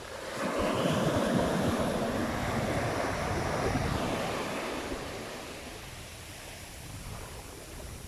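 Pacific Ocean wave breaking and washing up the beach, swelling about half a second in and dying away after a few seconds, part of a heavy set of waves rolling in.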